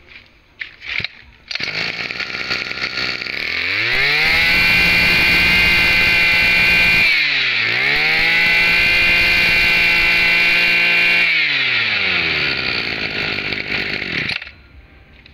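Tanaka TBC-2501 brush cutter's small two-stroke engine starts, idles briefly, then is revved twice to a steady high speed with a short dip in between. The throttle is released so it winds back down to idle, and the engine cuts out near the end.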